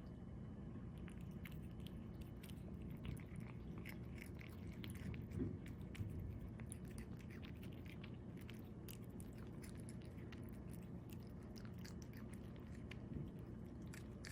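A cat chewing small broken-up pieces of cauliflower: faint, irregular crunching clicks over a low steady background hum.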